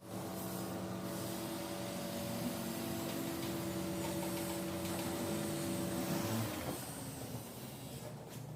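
A machine running steadily, a hum of several tones over a blowing hiss; the hum winds down about six and a half seconds in.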